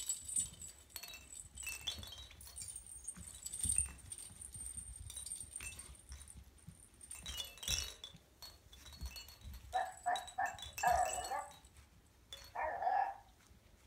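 Maltese puppies at play: bells in the hanging ball toys jingling and toys clicking for the first half, then several short high yips about ten seconds in and again near the end.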